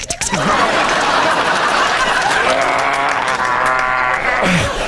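Studio audience laughing and clapping while a man makes improvised sound effects with his voice into a microphone. There is a buzzing, pitched sound from about halfway through, then a deep falling glide near the end.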